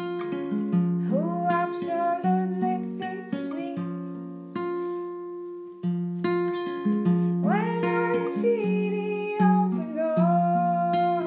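Acoustic guitar picked in a steady pattern under a woman's singing voice. The voice sings two long phrases that slide up into their notes, the first about a second in and the second about seven seconds in.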